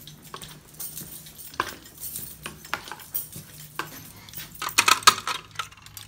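A ring of keys jingling with footsteps, then a louder burst of metal clinks and clacks about five seconds in as a key opens the metal cover of a Simplex fire alarm pull station.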